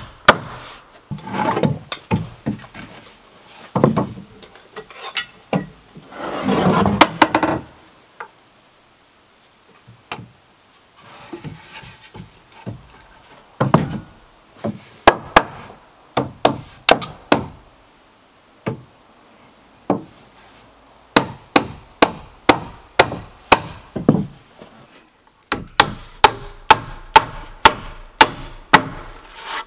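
Claw hammer driving nails into wooden porch framing: runs of quick, even strikes, each with a short metallic ring from the nail, in several bursts with pauses between. Between the bursts come rough scraping and knocking of lumber being handled.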